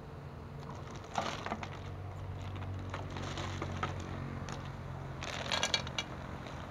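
Snail shells clicking and clattering against one another and against an aluminium pot as handfuls of snails are dropped in, with the busiest clatter about five to six seconds in.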